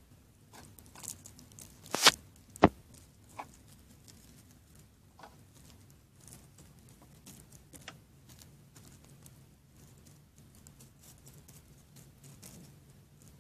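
Plastic toy figures and pieces being handled and set down on a hard surface: scattered light taps and clicks, with two sharp knocks about two seconds in.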